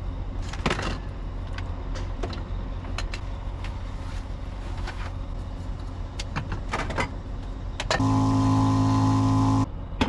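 A motor vehicle sounds nearby: a steady low hum with scattered clicks and knocks. Near the end comes a loud steady tone of one pitch, lasting about a second and a half, which cuts off suddenly.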